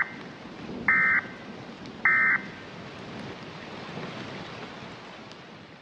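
EAS end-of-message SAME data bursts: after the tail of the first, two more short digital tone bursts about a second apart. Under them runs a steady rain-like hiss that fades out at the end.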